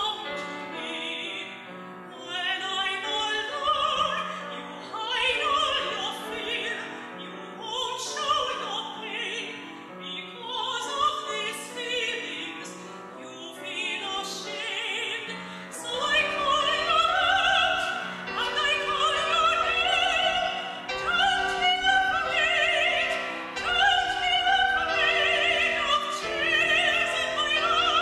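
Classical soprano singing with piano accompaniment, from an old cassette recording with a wobbly, uneven sound. The music grows fuller and louder about halfway through.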